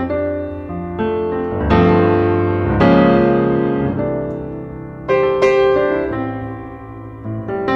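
Background piano music: struck notes and chords that ring and fade, with a new chord every second or two.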